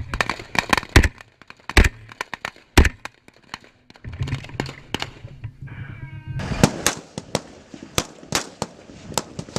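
Rifle gunfire: a string of single shots at an irregular pace, some sharper and louder than others, with a brief lull a little before the middle.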